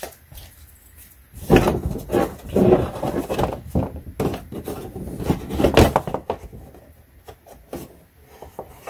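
Plastic wheel-well liner of a Toyota Prius being pulled back and flexed by hand: irregular plastic knocks, scrapes and rustling, busiest in the middle and quieter near the end.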